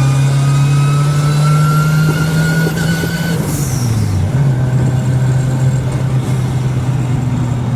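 Turbocharged VW Gol accelerating, the engine note and the whine of its forged gearbox rising together. About three and a half seconds in the whine stops, a short hiss sounds and the revs dip briefly, then the engine runs steadily.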